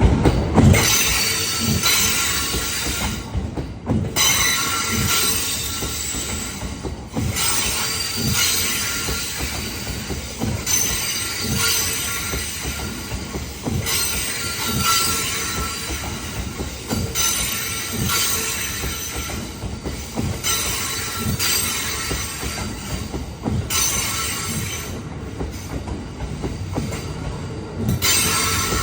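Cassiopeia sleeper train (E26 series cars) rolling past, its wheels clacking over rail joints in a steady rhythm about every two-thirds of a second. Wheel squeal comes and goes.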